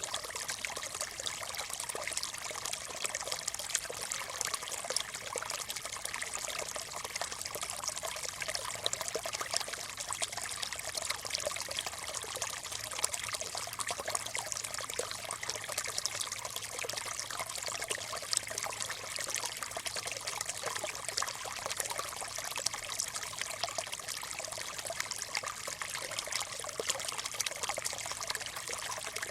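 Small stream trickling and babbling over stones, a steady run of water with many small splashes and bubbles.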